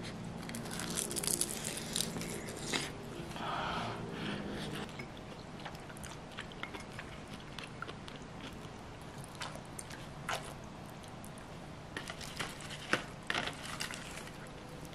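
Close-up eating sounds: crisp crunching bites of seasoned laver (gim) wrapped around rice, then chewing, with a few sharp clicks of a spoon against the dishes near the end.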